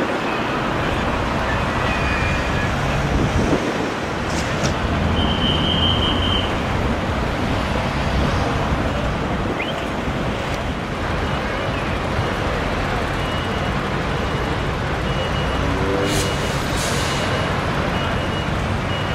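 Steady road traffic noise from vehicles passing on a motorway. A high beep is held for about a second and a half around five seconds in, and a string of short, evenly spaced beeps starts about eleven seconds in.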